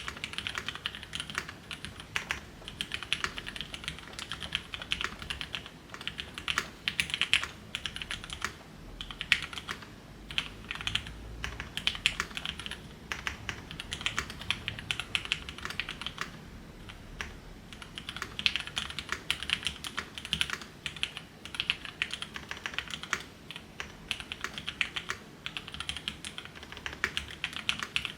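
Typing on a custom mechanical keyboard with an FR4 plate and lubed, filmed MX Black HyperGlide linear switches: dense runs of keystrokes with short pauses between bursts. The keyboard is foam-filled and tape-modded, and the keystrokes are soft, deep clacks rather than clicks.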